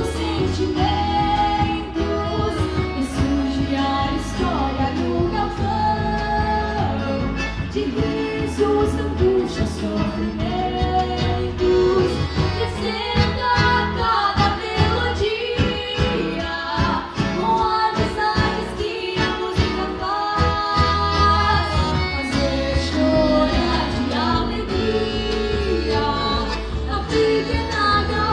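Two young female voices singing a gaúcho native-song duet live, accompanied by acoustic guitars.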